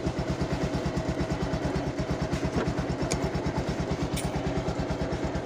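Motorcycle engine idling steadily, its exhaust beating evenly at a constant speed.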